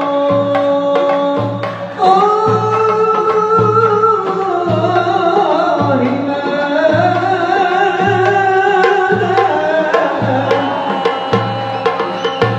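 Aissawa Sufi chant: a man's amplified voice sings long, sliding held notes over an even, slow drum beat. The singing comes in louder about two seconds in.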